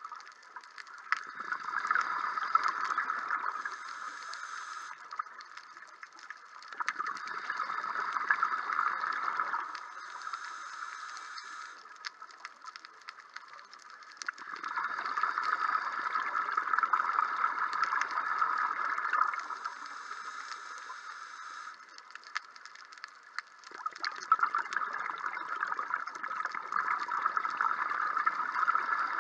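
Scuba diver breathing through a regulator underwater: four long bouts of exhaled bubbles gurgling past the camera, each a few seconds long, with the quieter hiss of the in-breath between them.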